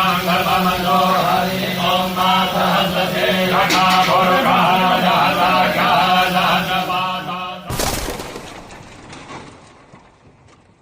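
Voices chanting mantras during a Shiva abhishek, over a steady low hum. About three quarters of the way through, the chanting stops at a sudden sharp crash that fades away.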